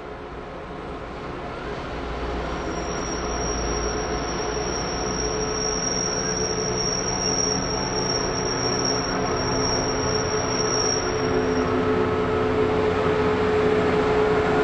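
Diesel locomotive approaching, its engine and rumble growing steadily louder as it nears. A thin high-pitched wheel squeal on the curve runs from about three seconds in until near the end.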